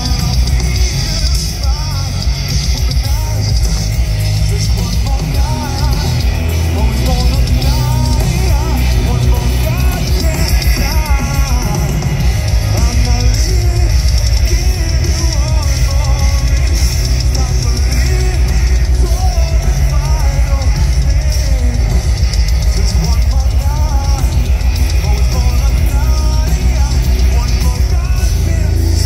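Live heavy metal band playing loud through an outdoor festival PA, heard from the crowd: drums, heavy bass and guitars, with a sung vocal line over them.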